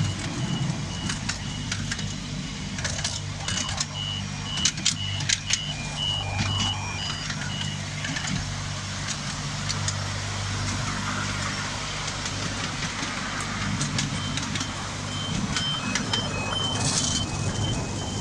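Ride-on miniature railway train running along its track: a steady low engine drone from the Union Pacific-style locomotive with sharp clicks from the wheels on the rails. A high, repeating two-note beeping sounds during the first eight seconds or so and again near the end.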